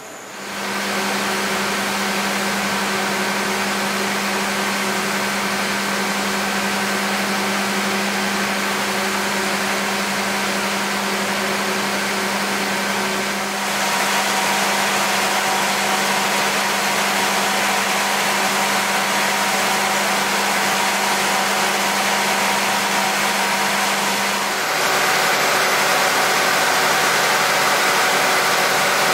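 A train's diesel engine running steadily at idle, a loud, constant hum over a noisy rush. The sound shifts abruptly about halfway through and again near the end.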